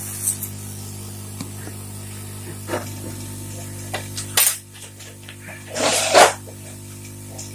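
Hot-air rework blower heating a small IC onto a circuit board: a steady airy hiss over a low hum. A sharp click comes about four and a half seconds in, and a louder hissing burst about a second and a half later.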